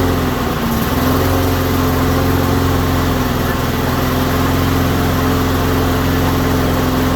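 Honda GCV160 single-cylinder mower engine running steadily, freshly started on the first pull after its gummed-up carburetor was cleaned.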